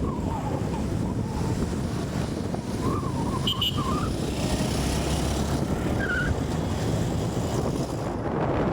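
Steady road traffic rumble with wind buffeting the microphone, and a brief high tone about three and a half seconds in.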